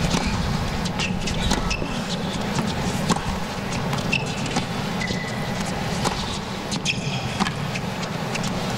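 Hard-court tennis rally: sharp racquet strikes and ball bounces about once a second, with a brief shoe squeak partway through. Under them runs a steady low engine-like hum.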